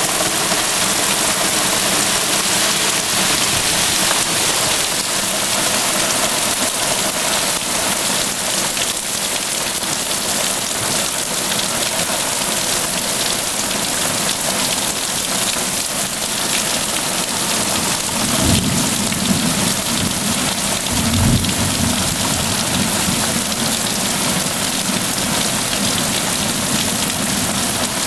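Heavy thunderstorm rain pouring steadily. Two low rolls of thunder come past the middle, a few seconds apart.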